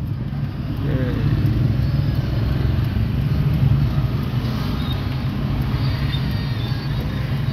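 Steady low rumble of idling engines in a stop-and-go traffic jam, heard from inside a car, with motorcycles moving alongside.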